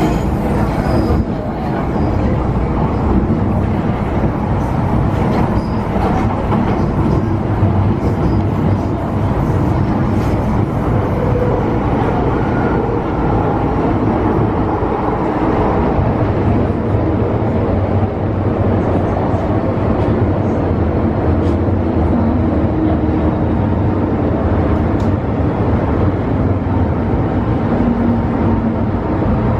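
MTR Tsuen Wan Line electric train running at speed, heard on board: a steady rumble of wheels on rail with a faint shifting hum.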